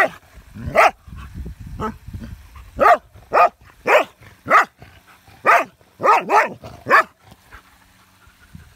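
A dog barking repeatedly at a hedgehog rolled into a defensive ball, about ten short sharp barks spaced half a second to a second apart. The barking stops about seven seconds in.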